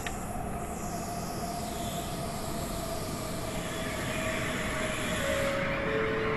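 Electric passenger train pulling into an underground station, a steady rumble growing louder with a whine that falls slowly in pitch as the train slows.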